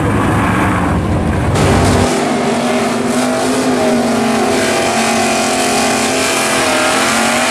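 Drag-race engines rumbling, then about two seconds in a Chevy Nova drag car doing a burnout: its engine held at high steady revs while the rear tyre spins and squeals.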